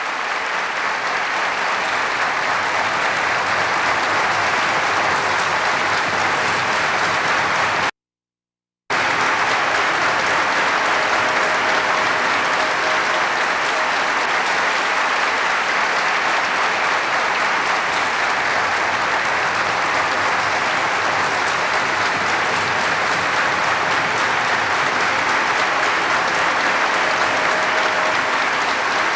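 Audience applauding steadily, with the sound cutting out completely for about a second roughly a third of the way in.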